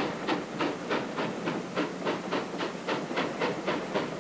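Steam locomotive chuffing steadily, a regular beat of hissing exhaust puffs at about four a second.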